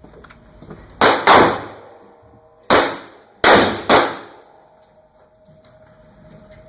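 Five gunshots in two quick groups, a pair then three, each with a short echoing tail.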